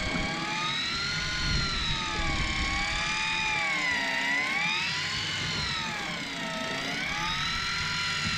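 Miya Epoch VR-900 12-volt electric fishing reel's motor whining as it winds line in, its pitch sinking and rising every couple of seconds.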